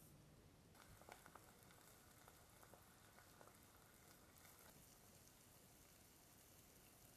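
Near silence: faint hiss with a few faint ticks in the first few seconds.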